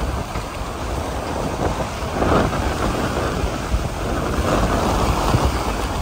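Wind buffeting the microphone over the wash of surf on a beach, the surf swelling about two seconds in and again near the end.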